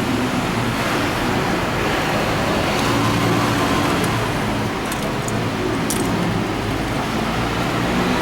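A vehicle engine running steadily, with a few light clicks about five and six seconds in.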